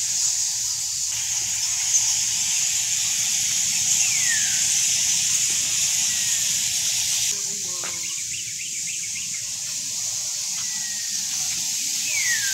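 Steady high-pitched hiss of a background animal chorus. A descending whistled call sounds about four seconds in and again near the end, with a quick run of short chirps just past the middle.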